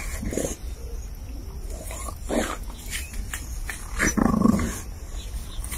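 Dogs growling in short throaty bursts while tussling, three times, the longest and loudest about four seconds in.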